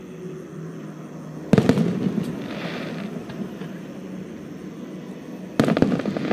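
Aerial fireworks shells bursting: two loud booms about four seconds apart, one about a second and a half in and one near the end, each followed by a rumbling echo and crackling.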